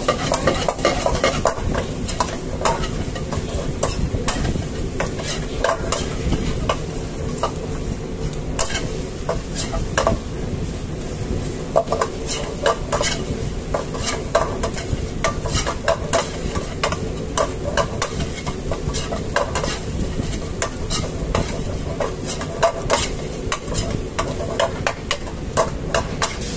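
Steel ladle stirring and scraping chopped onions, garlic and ginger in a metal kadai, with frequent sharp clinks of the ladle on the pan over a steady frying sizzle.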